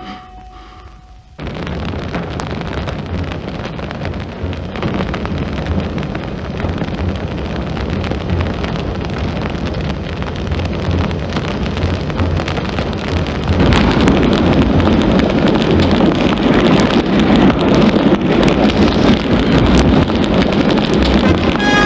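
A large fire burning with a dense crackling roar. It starts suddenly and grows louder about two-thirds of the way through.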